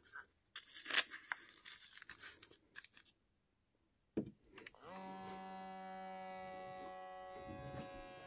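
Scratchy rustling and clicks of handling for about three seconds, then after a short click the small pump motor of a wrist blood pressure monitor starts about five seconds in and hums steadily as it inflates the cuff.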